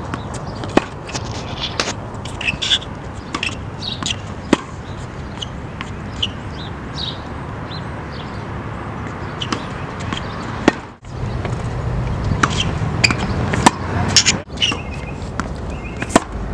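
Tennis balls struck with a racket and bouncing on a hard court: sharp pops at irregular intervals over steady background noise.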